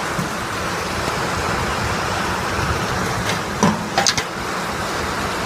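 Heavy rain falling in a storm: a steady, even hiss, with two brief higher sounds about four seconds in.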